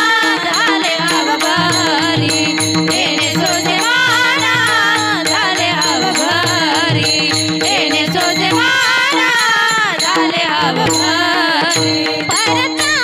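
Marathi Varkari kirtan music: a woman sings an ornamented devotional melody over a steady held drone, with a rhythmic drum pattern and small hand-cymbal strokes.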